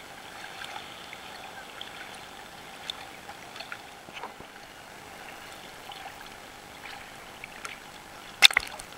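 Ocean water sloshing and lapping against a waterproof camera held at the surface, with small scattered clicks. A single sharp knock comes near the end.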